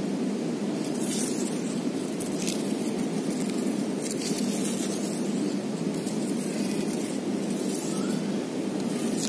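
Steady low background rumble, with a few brief hissing rustles.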